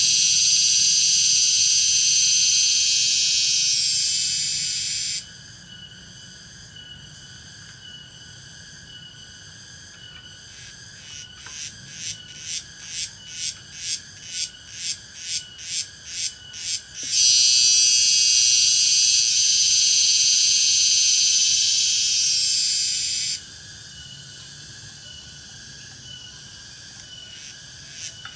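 A loud, high-pitched insect chorus, typical of cicadas in tropical forest. A steady buzz cuts off suddenly about five seconds in. A pulsing call of about two pulses a second then swells in loudness, the steady buzz returns suddenly and cuts off again, and the pulsing starts once more near the end.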